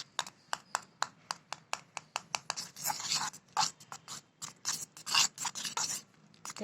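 Knife stirring and chopping thick aloe vera gel in a bowl: quick, irregular clicks and taps of the blade against the bowl with wet scraping between them, stopping briefly about six seconds in.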